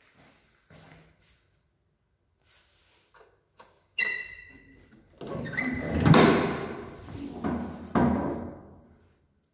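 Hinged metal landing door of a 1979 Končar lift: a sharp metallic click with a brief ring as the landing button is pressed, then the door is unlatched and swung open with clunks and rattles, the loudest knocks about two and four seconds after the click.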